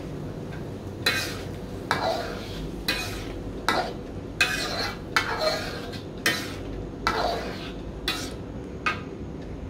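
Metal ladle scraping round a steel wok as thick chili sambal is stirred while it cooks down. There are about ten strokes, roughly one a second, each a sharp scrape that trails off.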